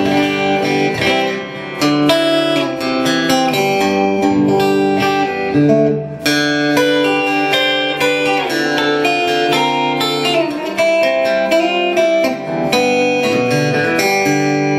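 Gibson Les Paul Studio played through two amps at once, its Baggs piezo bridge saddles through an acoustic amp and its passive pickups through an electric guitar amp: strummed chords, with acoustic and electric guitar tones together.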